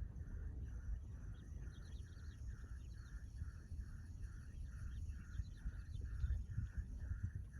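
Outdoor ambience of birds and insects: a call repeats evenly about twice a second, with scattered higher chirps and a steady high hiss over a low rumble.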